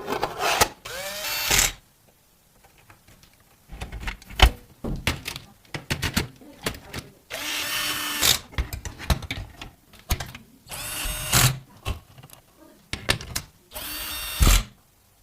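Electric screwdriver driving PC assembly screws in short whirring bursts, four or five times, with small clicks and knocks of parts being handled in between.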